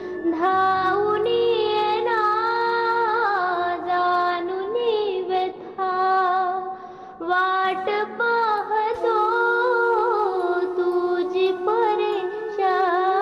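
Devotional bhajan music: a single melody line of long held, gliding notes, with a brief lull about six to seven seconds in.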